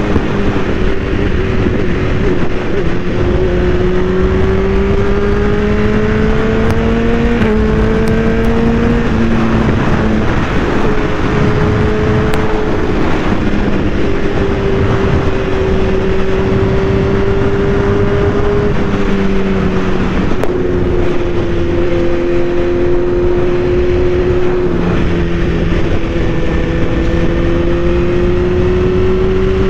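BMW S1000RR superbike's inline-four engine running at highway speed over steady wind rush, its note rising and falling slowly with the throttle and dropping suddenly in pitch a few times.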